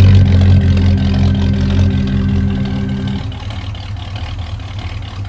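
A 1966 Pontiac GTO's 389 V8 running at steady revs with a deep, even note. About three seconds in it eases off and grows quieter.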